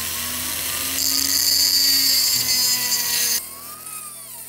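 Handheld rotary tool with a small cut-off disc spinning fast and grinding into the model car's body: a high, hissing whine that gets louder about a second in as the disc bites, then cuts off suddenly about three and a half seconds in.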